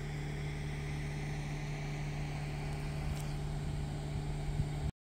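Steady low engine hum, as of a vehicle running, that cuts off suddenly near the end.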